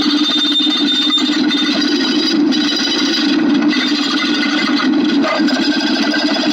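Dense, continuous clicking that runs together into a steady buzzing rasp, with a faint high thin tone that stops about a second and a half in.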